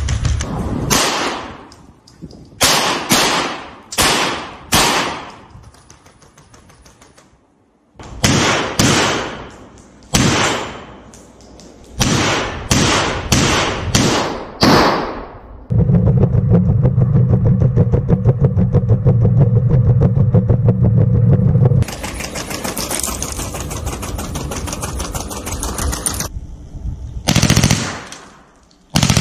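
Rifle mounted on a quadruped robot dog firing: about a dozen single shots at irregular spacing, each with a short echoing tail. Then comes a loud continuous burst of rapid automatic fire lasting about six seconds, then a few seconds of steady hiss, and two more single shots near the end.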